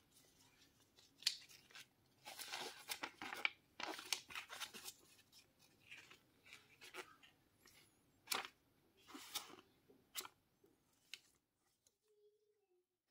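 Folded paper leaflet rustling and crackling as it is unfolded and its pages flipped: a quick run of short crackles over the first five seconds, then a few sparser ones, stopping a little before the end.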